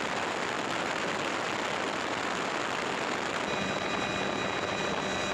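Steady rushing noise, joined about three and a half seconds in by a steady engine hum with a thin high whine.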